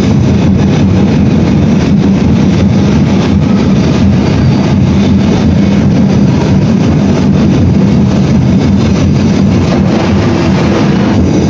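Loud, dense festival drumming from a street-dance percussion ensemble, so close to full scale that it blurs into a steady low rumble.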